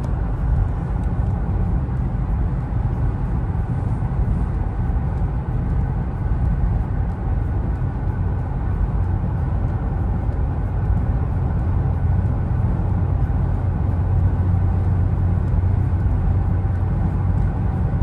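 Steady road noise inside a car's cabin at interstate speed: tyre and engine rumble, mostly low, with a low hum that grows a little stronger in the second half.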